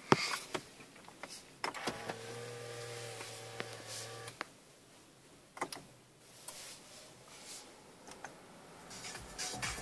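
Inside a Kia car's cabin: a sharp click, then a small electric motor whirring steadily for about two and a half seconds, followed by a few scattered clicks. Near the end the car's radio starts playing music.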